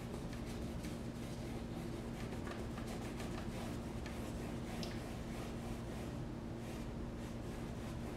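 Paintbrush stroking acrylic paint onto a stretched canvas, repeated short strokes, over a steady low hum.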